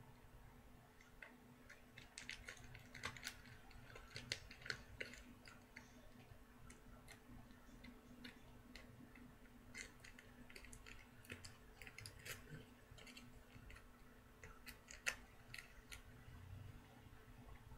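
Faint, irregular crinkling and small clicks of tin foil and duct tape being handled and folded in the hands, with a few sharper crackles now and then.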